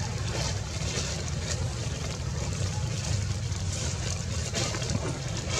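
Steady outdoor background noise: a continuous low rumble under an even hiss, with no distinct events.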